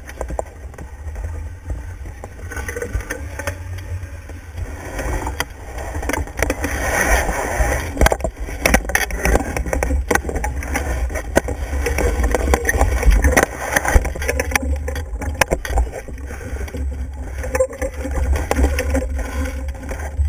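Wind rumbling on the camera's microphone and water rushing past the hull of a Stiletto sailing catamaran under way. Scattered knocks and rattles of rigging and deck gear come through it.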